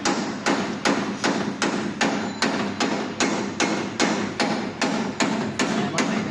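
Hand hammer tapping steadily and repeatedly, about two to three light strikes a second, driving a misaligned aircraft part into place.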